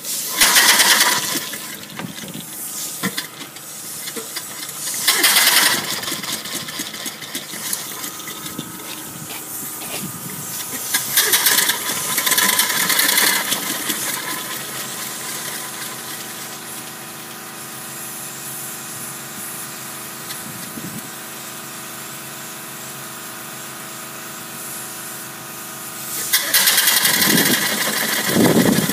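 Antique E.H. Wachs upright steam engine running steadily on a test run, broken by bursts of loud hiss near the start, twice more in the first half and a longer one near the end.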